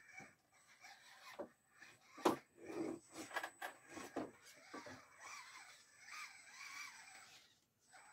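Electric motor and gearbox of a 1/10-scale RGT Bowler RC crawler whining, the pitch rising and falling with the throttle as it crawls over wooden planks and blocks. Knocks of the tyres and chassis on the wood come through, the loudest a little over two seconds in, with more around three to five seconds.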